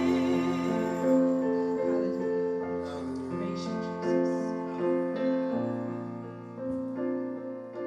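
Keyboard playing slow, held chords that change about once a second, as quiet instrumental music.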